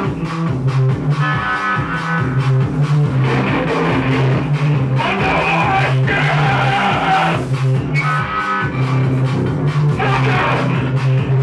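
Loud noise music: a dense wall of sound over a steady low drone, with constant crackle through the upper range.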